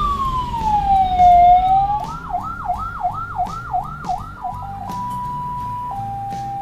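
An ambulance's electronic siren heard from inside the cabin, switching through its modes. First a slow falling wail, then a fast yelp of about three sweeps a second, then a two-tone hi-lo that changes pitch about once a second. The vehicle's low road rumble runs underneath.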